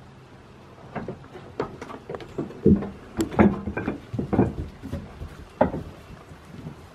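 A run of irregular knocks and thumps, about a dozen over some five seconds, starting about a second in.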